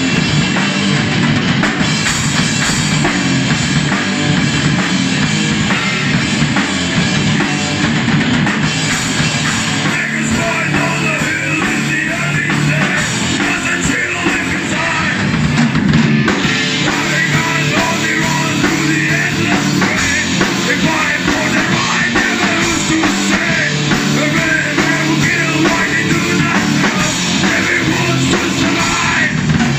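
A rock band playing live, loud and without a break: two electric guitars, an electric bass and a drum kit.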